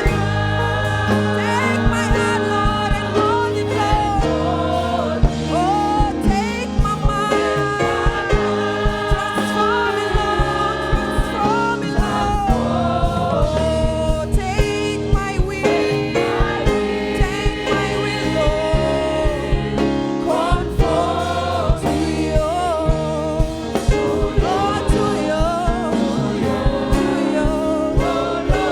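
Gospel choir singing with band accompaniment and a steady drum beat.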